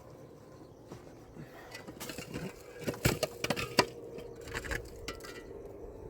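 A quick run of sharp clinks and knocks of hard objects striking each other, the two loudest about three seconds and nearly four seconds in.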